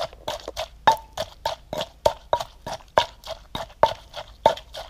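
Wooden pestle pounding a spicy salad in an earthenware mortar: steady strokes about three or four a second, each a sharp knock with a brief ring from the mortar, as the seasoned ingredients are pounded together.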